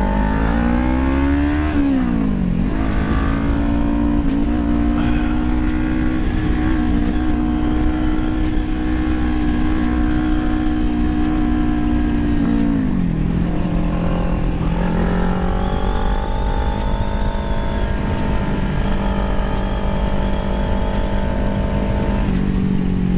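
Kawasaki Ninja 400's parallel-twin engine under way, heard from the rider's helmet with wind rumbling on the microphone. The engine note climbs and drops as the rider shifts up about two seconds in, holds steady at cruise, then drops to a lower steady pitch after another upshift about halfway through.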